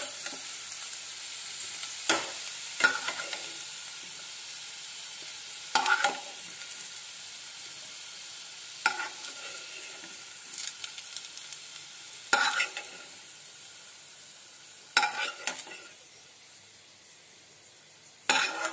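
Oil sizzling as fried potato cubes are scooped out of a non-stick kadai with a steel ladle. The ladle scrapes and clinks against the pan every few seconds, and the sizzle grows fainter as the pan empties.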